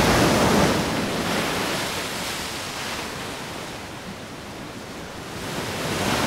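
Wind gusting, a rushing noise that is loudest at the start, eases off, then picks up again near the end.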